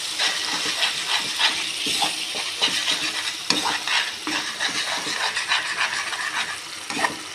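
Metal spatula stirring and scraping a thick tomato sauce with carrot strips around a wok, with irregular clinks of metal on the pan over a steady sizzle: the sauce is being stirred over the heat to thicken.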